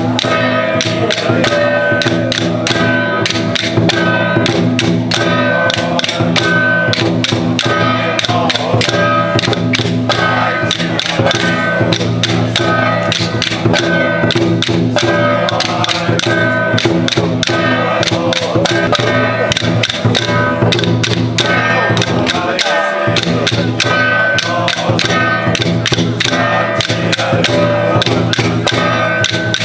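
Taiwanese temple ritual music: sustained pitched instrumental tones over a fast, even beat of percussion strikes.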